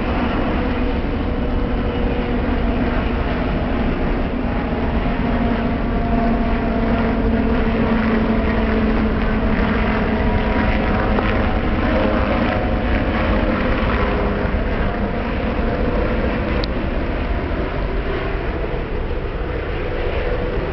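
Four-engine jet noise from an Airbus A380 on approach: a loud, continuous rumble with a low hum whose pitch slides slightly lower partway through.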